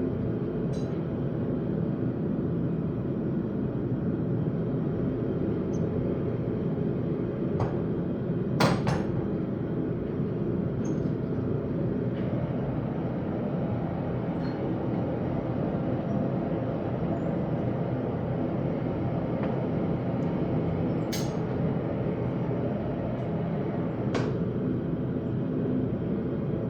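Blacksmith's forge running with a steady noise, with a few scattered sharp metallic clinks, the loudest about nine seconds in and another about twenty-one seconds in.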